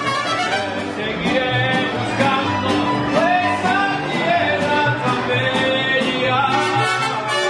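Mariachi band playing live: violins carry the melody over strummed guitars.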